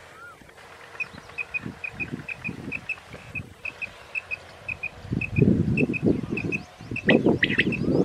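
Quail calling: short high chirps in quick pairs, repeated about twice a second. Loud rustling of crop stalks joins in the second half, with a cluster of sharper calls near the end.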